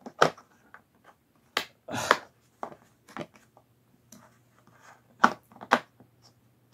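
Scattered clicks and knocks of small tools and hardware being picked up and handled on a hard surface, a few sharp taps spaced a second or more apart, with a faint low hum underneath from about two seconds in.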